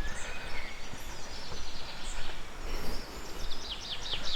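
Forest ambience: scattered bird chirps over a steady background noise, with a quick run of chirps near the end.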